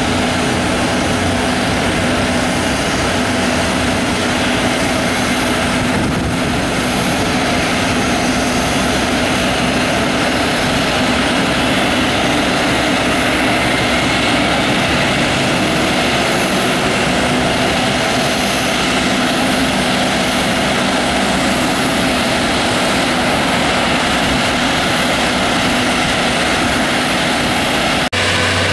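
Jet airliner engines running at idle on the apron: a steady, loud rush with a steady whine.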